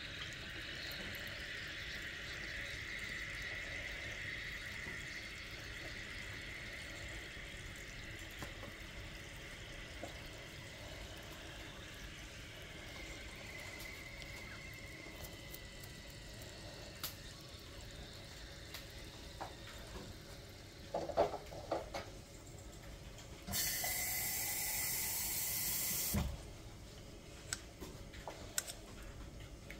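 Soft fizzing and small plastic clicks and scrapes as a plastic pick works at a dinosaur-egg toy dissolving in a cup of water. The fizz fades away over the first half. Near the end a loud rushing hiss lasts about two and a half seconds.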